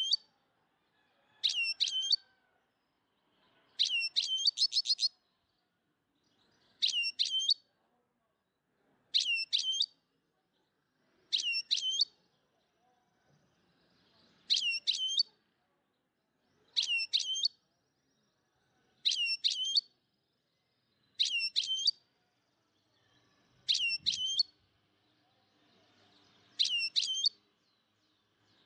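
A looped bird-like chirp: the same short phrase of two or three quick, high, whistled pitch glides, repeated about every two and a half seconds.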